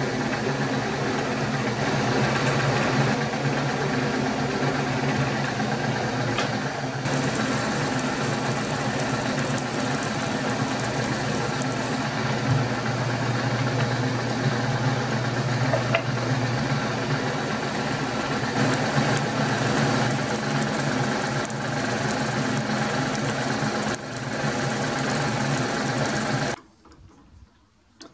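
Milling machine motor and spindle running steadily while a drill bit cuts tapping holes in a metal mounting plate. The machine switches off about 26 seconds in.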